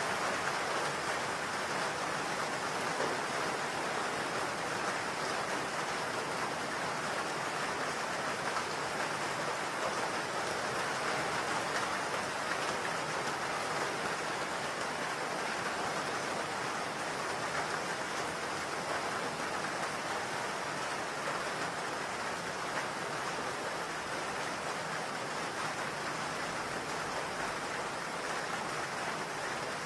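Steady rain: an even hiss that holds the same level, with no distinct drops or other sounds standing out.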